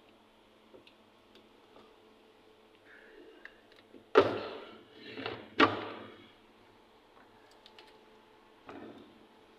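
Two loud knocks about a second and a half apart, each ringing out briefly, with a smaller knock between them and another near the end, and faint clicks before them: hard plastic parts of a semi-automatic washing machine being handled.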